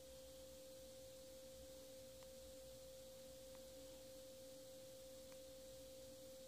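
Near silence: room tone with a faint, steady, single-pitched hum held unchanged throughout.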